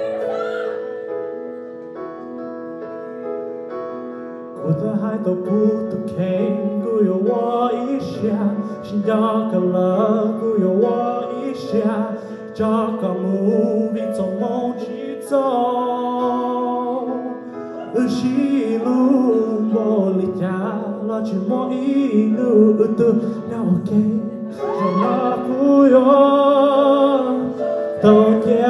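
Yamaha electronic keyboard playing held chords, joined about four and a half seconds in by a man singing a melody over them through a microphone, with vibrato on the long notes near the end.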